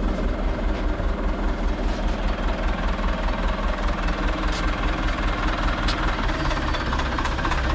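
Telehandler's diesel engine running steadily, with a fast, even throb.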